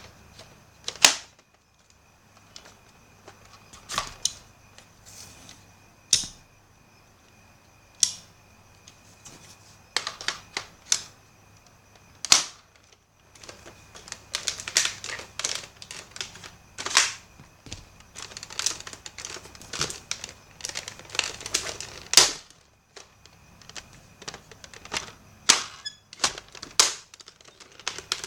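Nerf blaster mechanism clicking and snapping: single sharp clicks a couple of seconds apart, then rapid runs of clicks in the middle and again near the end.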